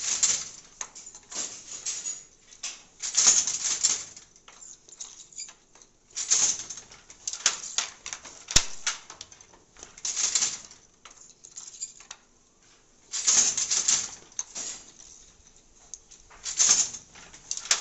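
Wooden handloom in use: shuttles passed by hand through the warp and the batten beaten against the cloth. Short bursts of rustling clatter with sharp knocks come about every three seconds.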